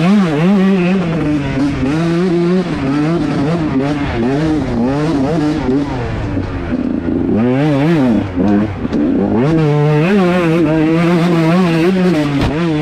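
125cc two-stroke motocross bike engine revving hard, its pitch swinging up and down quickly with the throttle and gear changes.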